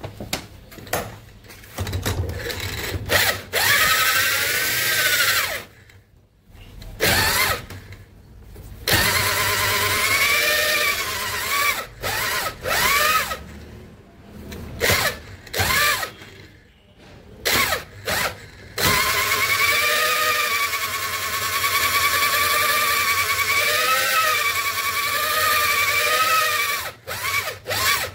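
A power-driven stone cylinder hone spinning inside a Kirloskar diesel engine cylinder sleeve clamped in a vise, polishing the bore. It runs in repeated spells of a few seconds with short stops, the longest near the end, the stones rubbing the bore with a wavering whine.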